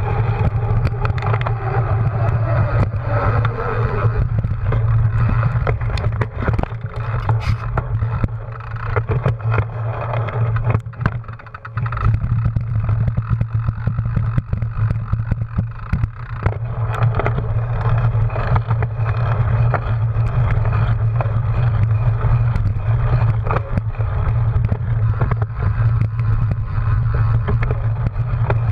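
Ride noise from a cyclocross bike with the camera on its handlebars: steady wind rush and tyre rumble, with frequent sharp clicks and rattles from the bike jolting over dirt and grass. The noise drops briefly about eleven seconds in.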